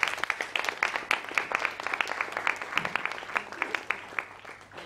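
Audience applauding, a dense patter of many hands clapping that thins out and fades away near the end.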